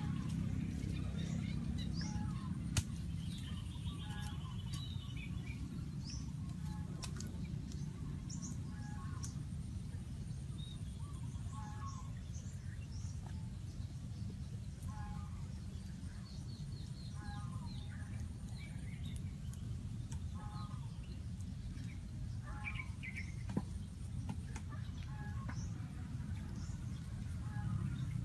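Outdoor ambience: birds calling, one repeating a short call every two to three seconds over scattered higher chirps, above a steady low rumble of background noise. Two sharp knocks stand out, one about three seconds in and one near the end.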